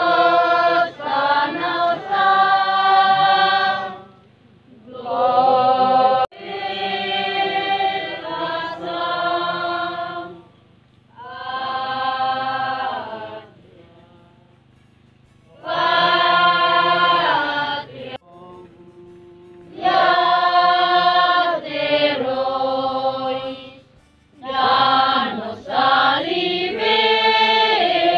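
A choir of girls' and young women's voices singing together without accompaniment, in phrases of a few seconds broken by short pauses.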